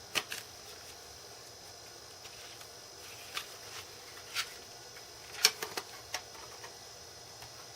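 A Zip 100 disk being handled and pushed into a Power Mac G3's internal Zip drive: a few scattered sharp clicks and knocks, the loudest cluster a little over five seconds in. Under them the computer's fan hums steadily with a faint high whine.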